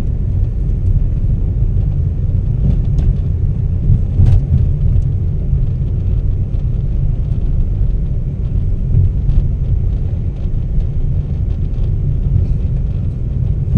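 Car driving slowly, heard from inside the cabin: a steady low road and engine rumble with a few faint clicks.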